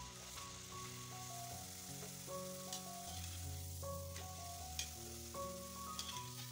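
Jowar-and-besan kurdai deep-frying in hot oil in a steel kadhai: a steady sizzle, with a few sharp clicks as the metal slotted spoon touches the pan. Background music with held notes runs underneath.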